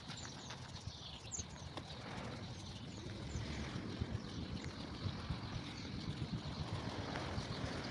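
Footsteps walking on a paved path, with small birds chirping now and then.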